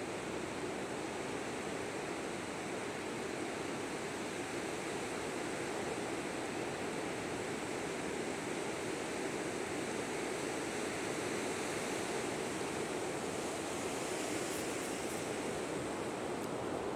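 Ocean surf washing steadily onto the beach as a continuous even rush.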